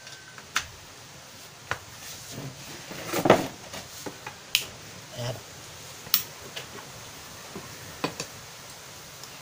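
Scattered sharp clicks and small knocks as the power cord and plug of a coconut-shell lamp are handled on a workbench, with a louder cluster of knocks and a brief scrape about a third of the way in.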